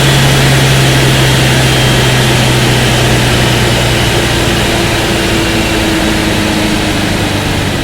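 1968 Porsche 912's rebuilt air-cooled flat-four engine, fitted with 86 mm pistons and cylinders, running at a steady speed just after a rev. Its pitch and loudness sink slowly, with a further drop near the end.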